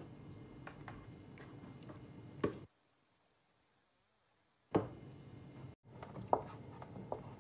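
Wooden spoon stirring meat in a yogurt sauce in a stainless steel pot, with scattered light knocks of the spoon against the pot. About two seconds of dead silence in the middle.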